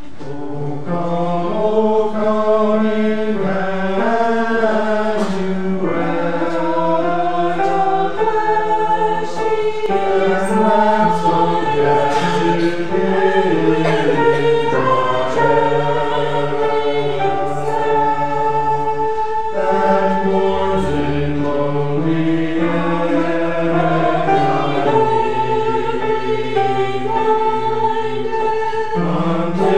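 Choir singing in several-part harmony with long held notes.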